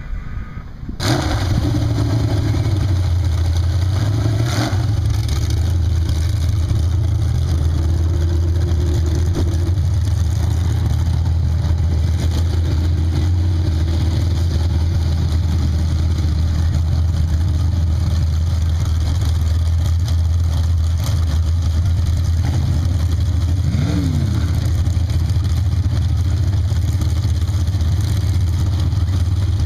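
Chevrolet small-block V8 of a mud dragster idling, a loud, steady, deep rumble with no revving, starting abruptly about a second in.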